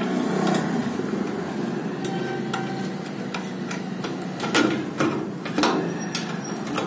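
Scattered metallic clicks and knocks as the ball-knob clamp handles on a stainless-steel table-top autoclave door are turned and tightened to seal it. A steady low hum runs underneath.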